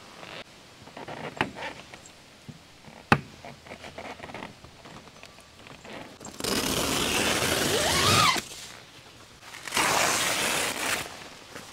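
Tent being handled during pitching: scattered knocks and one sharp click, then two loud spells of fabric rustling, each a second or two long.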